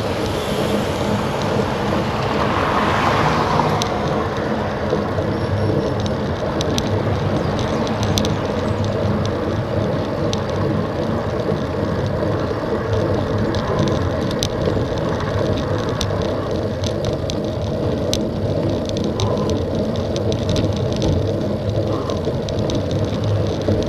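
Steady wind and road noise on the action camera of a road bicycle climbing at low speed. There is a swell of louder noise about two to four seconds in, and scattered light ticks later on.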